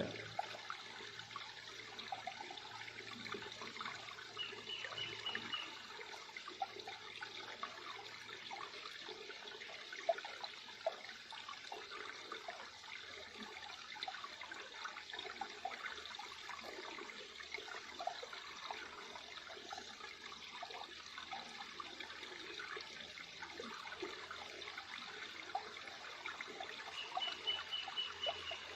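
River water trickling and babbling steadily, with a short high trill twice, about five seconds in and near the end, and a single sharp tick about ten seconds in.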